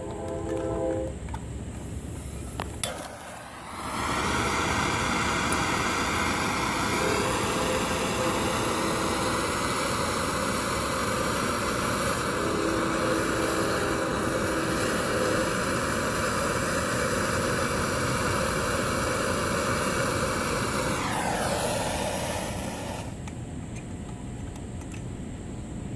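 A gas torch's flame: a sharp click, then about four seconds in a loud, steady jet hiss starts and holds while it melts the ping pong ball. About 21 seconds in the hiss falls in pitch and fades to a quieter background.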